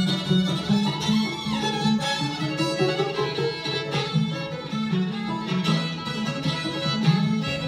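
Fiddle and banjo playing an old-time Appalachian tune together, the bowed fiddle melody over the banjo's plucked accompaniment.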